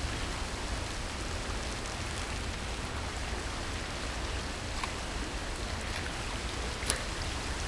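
Steady hiss and low rumble of light wind outdoors blowing on the microphone, with one faint short tick about seven seconds in.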